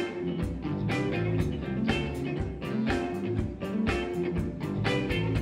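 Live blues band playing: electric guitar over drums with a steady beat and low, repeating bass notes.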